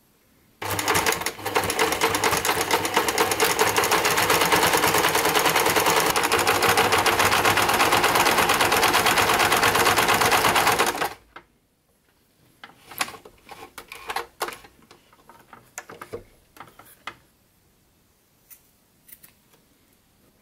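Electric domestic sewing machine stitching felt at a steady fast pace for about ten seconds, then stopping abruptly. Scattered quieter clicks follow.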